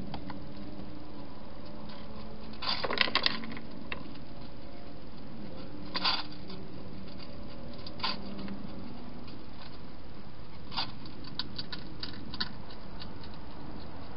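Wild hedgehog eating from bowls in a plastic feeding station: sharp clicks and clinks of its feeding at the bowls. There is a quick burst of several about three seconds in, single ones about six and eight seconds in, and a few lighter ticks near the end, over a steady hiss.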